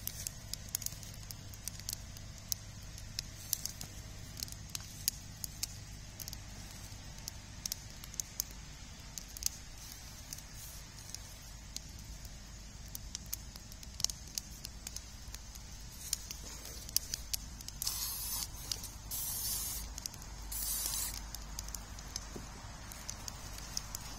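Wood campfire burning in a steel fire ring, with a steady hiss and frequent irregular crackles and pops from the burning sticks. About three-quarters of the way through come three short, louder bursts of hissing.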